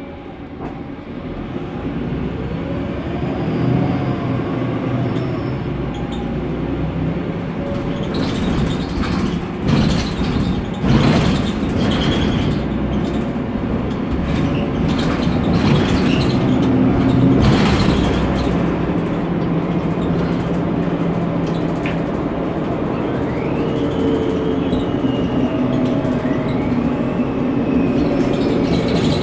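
Cabin sound of a Mercedes-Benz Conecto NGT city bus under way: its OM 936 G turbocharged natural-gas engine and Voith DIWA automatic gearbox running, getting louder over the first few seconds. A run of knocks and rattles from the bus body comes about ten seconds in, and whining tones rise and fall in pitch near the end.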